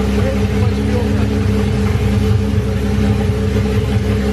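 BMW M30B35 3.5-litre straight-six with individual throttle bodies idling steadily, freshly swapped and running shortly after its first start.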